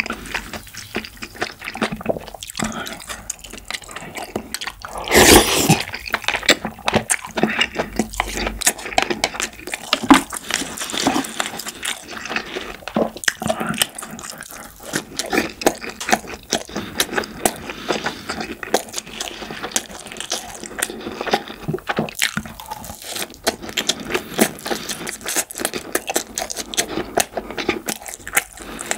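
Close-miked eating: wet chewing and smacking of soft pan-fried sausage and crab stick jeon and kimchi stew, with many small clicks of spoon and chopsticks. There is one louder burst about five seconds in.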